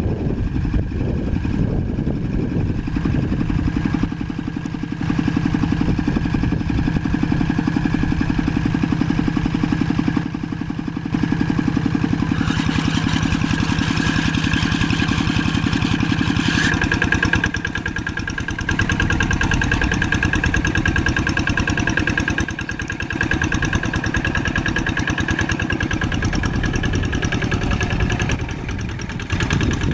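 Old tractor engine running steadily with an even firing beat. Its tone and loudness shift abruptly several times.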